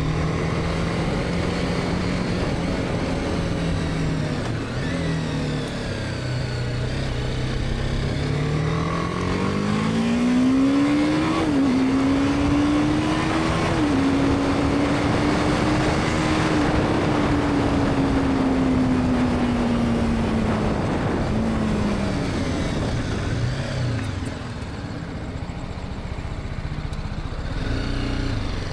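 BMW G310R's single-cylinder engine under way: running steady, then pulling hard with a rising note about a third of the way in, dropping in pitch twice in quick succession as it shifts up, then easing off with a slowly falling note. Wind rush over the bike runs underneath.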